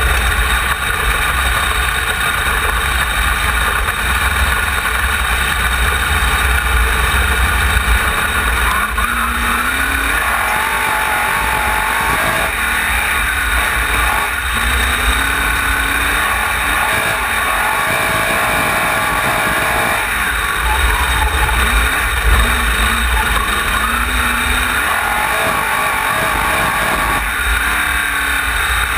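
Engine of a wingless open-wheel dirt-track race car, recorded by its onboard camera, running hard through the laps. Its pitch rises and falls several times as it is lifted and accelerated through the turns. Heavy wind rushes over the microphone throughout.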